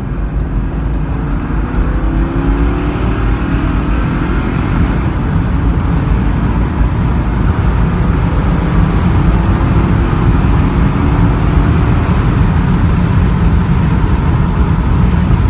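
Lincoln Navigator's 5.4-litre DOHC 32-valve V8 accelerating under throttle, heard from inside the cabin. The engine note climbs in pitch as it pulls through the gears, and tyre and wind noise build as the speed rises.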